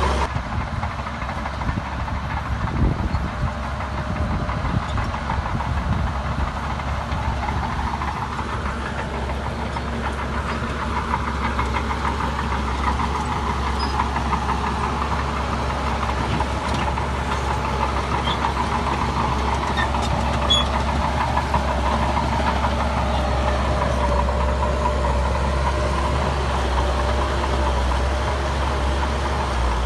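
Heavy diesel engine of earthmoving machinery running steadily with a deep rumble, its engine note shifting slightly as it works.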